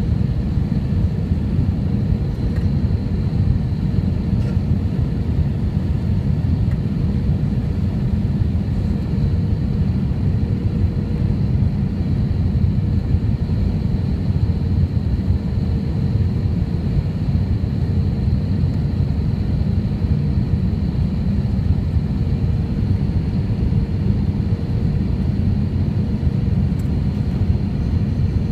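Steady cabin noise inside an Airbus A319 on final approach: a low engine and airflow rumble heard from a window seat over the wing, with a faint steady hum above it.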